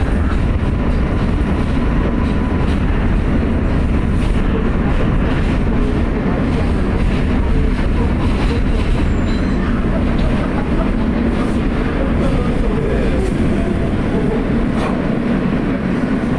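R143 subway car heard from inside while rolling on the elevated track: a steady, loud rumble of steel wheels on the rails with the car's running noise, as the train slows alongside a station platform.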